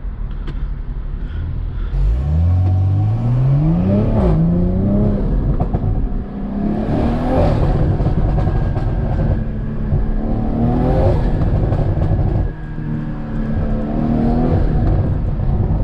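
2020 BMW M340i's turbocharged 3.0-litre B58 inline-six, fitted with an aftermarket turbo intake, accelerating hard through the gears. The revs climb steeply from about two seconds in, and the pitch drops at each upshift and climbs again, several times over.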